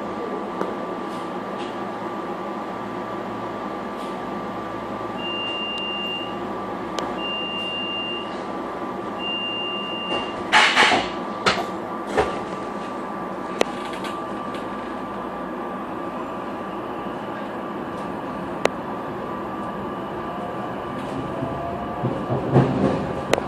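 Inside a Silverliner V electric multiple-unit railcar, a steady electrical hum runs throughout. Three short high warning beeps are followed, about ten seconds in, by a brief loud hiss as the doors close, then scattered clicks. Near the end, rumble and clatter begin as the train starts to move.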